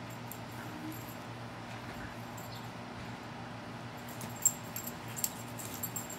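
Steady low hum and hiss, with a run of sharp clicks and ticks starting about two-thirds of the way through; the first click is the loudest.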